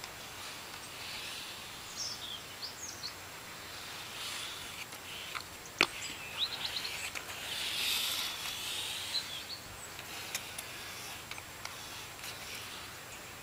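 Outdoor background noise with birds chirping now and then. A single sharp click about six seconds in.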